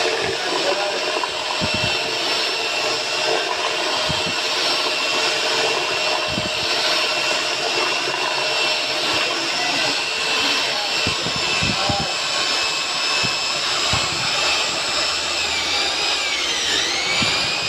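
Electric martabak batter mixing machine running steadily: a continuous motor whirr with a high whine, whose pitch dips briefly and recovers near the end.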